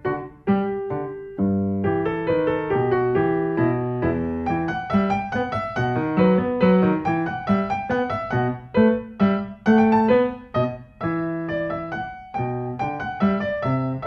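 Background piano music: a gentle melody of single struck notes over low chords.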